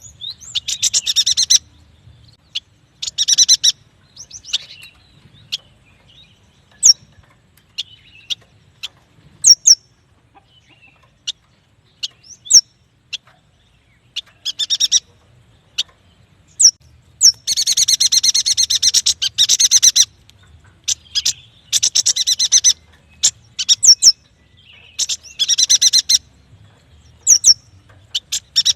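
Yuhina singing: bursts of rapid, high, chattering trills, the longest lasting about two seconds past the middle, with single sharp high notes falling in pitch between them.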